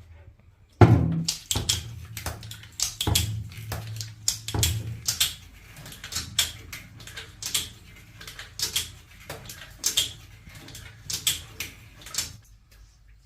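A run of irregular knocks and clatters, hard objects striking, with one loud knock about a second in and a low hum under the first few seconds.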